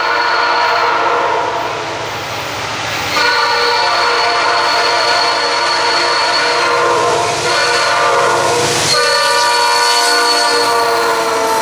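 Norfolk Southern diesel locomotive's multi-note air horn sounding the long, long, short, long grade-crossing signal as the train approaches. The rumble of the locomotives swells as they pass close by near the end.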